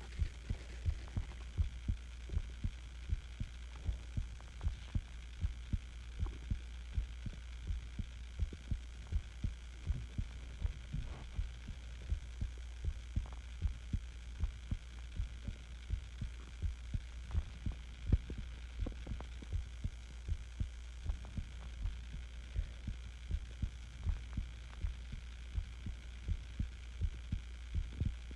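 A person's heartbeat, a steady, regular run of soft low thumps, over a constant low hum.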